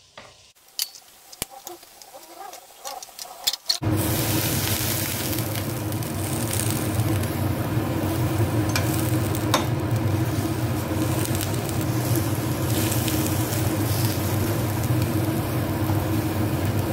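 Chicken tikka pieces frying on an oiled grill pan, with metal tongs clicking and scraping as the pieces are turned. About four seconds in, a loud, steady sizzle sets in with a low hum beneath it.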